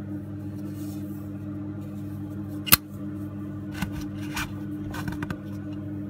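Zippo 29489 black matte windproof lighter's hinged metal lid snapping shut with one sharp click nearly three seconds in, followed by a few lighter clicks and taps as it is handled. Steady ambient music plays underneath.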